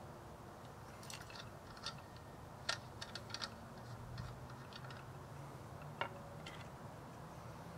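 Faint small metallic clicks and taps as the brass fuel cap of a Svea 123 camp stove is unscrewed and retightened by hand, venting any pressure or vacuum in the tank. The clicks are scattered, with a sharper one about a third of the way in and another about six seconds in.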